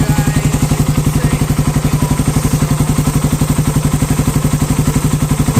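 Suzuki Raider 150's single-cylinder four-stroke engine idling steadily through a big exhaust elbow with the catalytic canister removed, an even rapid putt of about eleven exhaust pulses a second.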